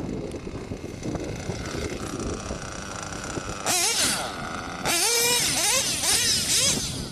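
Modified JL21 big-block .21 nitro engine of an OFNA Hyper 10SC RC short-course truck, running with a faint steady note and then revving hard: one short high-pitched rev a little past halfway, then a longer run of rising and falling revs for nearly two seconds as the truck accelerates.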